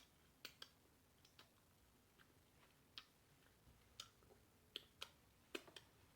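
Faint, irregular wet clicks and smacks of a mouth chewing food, about a dozen sharp ticks at uneven intervals.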